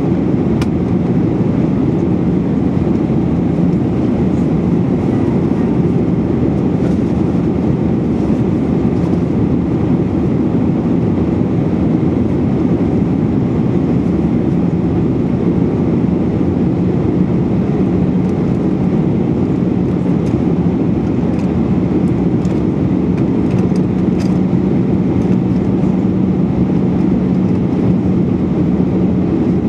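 Steady cabin noise of an Airbus A319 in flight, heard from a window seat over the wing: the rush of air past the fuselage and the running CFM56-5B5 turbofan, with a low steady hum that grows a little stronger near the end. A few faint clicks sit on top.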